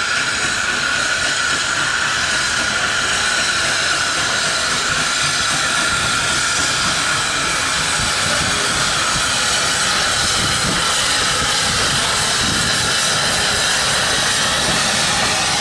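Steam hissing steadily, with the low rumble and knocking of a steam locomotive, the SE&CR O1 class 0-6-0 No. 65, drawing slowly in with its coaches and growing in the second half.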